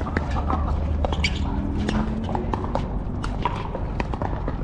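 Pickleball paddles popping and balls bouncing on hard courts: a quick, irregular scatter of sharp clicks, over a steady low hum.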